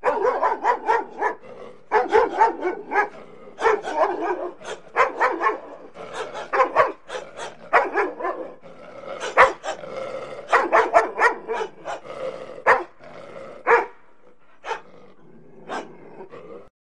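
Dog barking in rapid runs of short, sharp barks, thinning out to a few single barks near the end.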